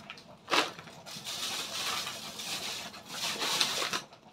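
Plastic grocery bags and packets crinkling and rustling as they are handled, with a sharp crackle about half a second in.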